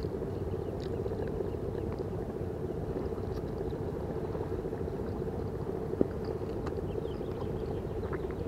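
A steady low hum, with faint crinkling of a paper food wrapper being handled and one sharp click about six seconds in.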